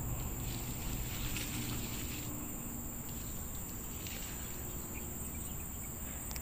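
Steady high-pitched chirring of insects in the field, with faint rustling of leaves now and then.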